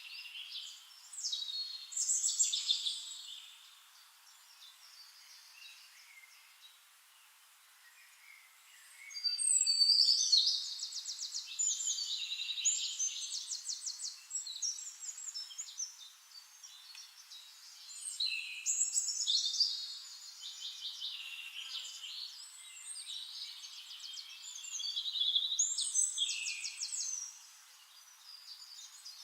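Songbirds singing in bouts of rapid, high-pitched trills and warbling phrases, separated by pauses of a few seconds.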